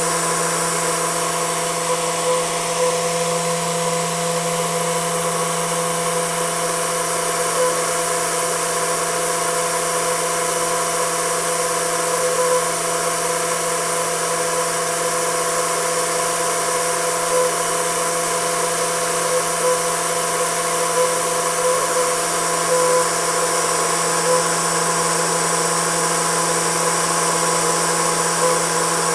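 Homemade Tesla turbine spinning steadily at about 10,000 rpm on 15 psi: a steady hum with a stack of even overtones over a broad hiss. The pitch holds level, matching its unchanging speed.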